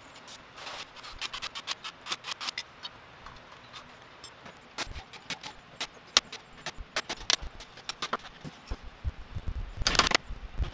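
Hand tools working the screws of a motorcycle engine's clutch-side cover: a run of irregular metal clicks and taps from a ratchet and wrench. A louder clatter comes near the end.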